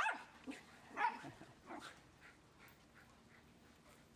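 Dog giving short, high-pitched yelping barks during rough play with other dogs, a loud one at the very start and another about a second in, then only faint sounds.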